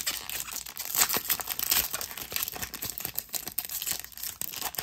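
Trading-card pack wrappers crinkling and crackling as they are handled and torn open, a dense run of irregular crackles.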